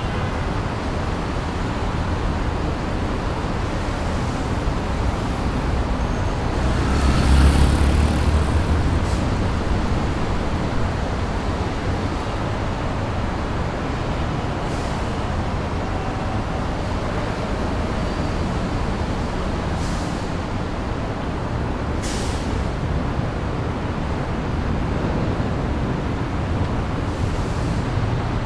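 City street traffic noise: a steady wash of passing cars, swelling into a louder, deeper pass about seven seconds in, with a few short hisses later on.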